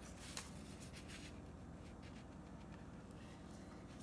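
A few faint, brief paper rustles in the first second or so, from a strip of newsprint laid onto the marbling size along the edge of the tray to draw the paint to the edge.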